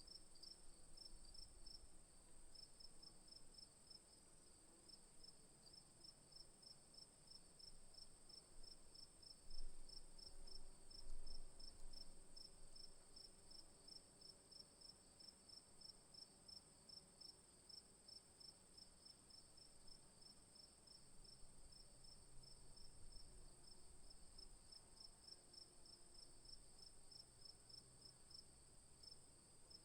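Insects calling: a steady high-pitched buzz with a fast, regular chirping over it, like crickets. A couple of brief, louder bumps come about ten seconds in.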